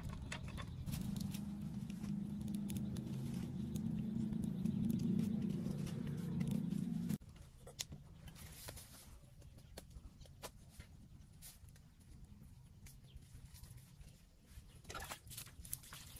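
Light crackling and rustling of a smoking kindling fire and dry leaves over a steady low hum, all cutting off abruptly about seven seconds in. Then quieter scattered ticks and rustles as a raw plucked chicken is handled, with small splashes of water poured over it near the end.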